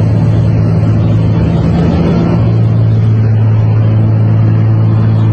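Aircraft engine drone heard inside the airplane cabin: a loud, steady roar with a constant low hum.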